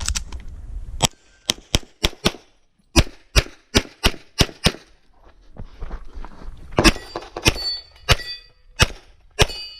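A CZ SP-01 pistol fired in rapid strings of shots at a practical-shooting stage: about five quick shots, a short pause, another six, then a slower run of shots near the end. Several of the later shots are followed by the ringing of struck steel targets.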